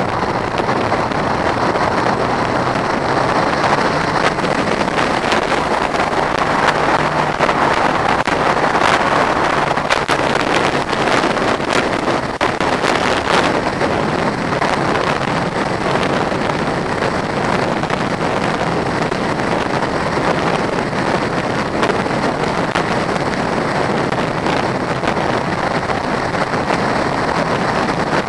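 Motorcycle riding at road speed, its engine running under a steady rush of wind over the microphone.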